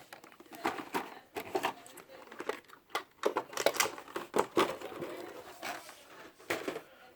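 Toy packaging being handled and opened: irregular crinkling, rustling and tearing of cardboard and plastic.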